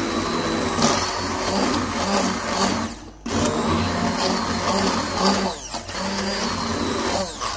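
Electric blender running, grinding boiled rice for kheer, in bursts with short stops about three seconds in and near the end.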